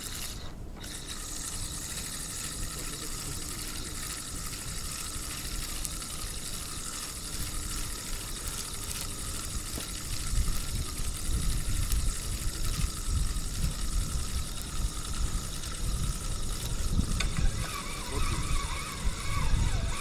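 Spinning fishing reel being cranked to bring in a hooked fish, a steady mechanical whirr of the reel. From about halfway, low rumbling handling noise on the microphone grows louder.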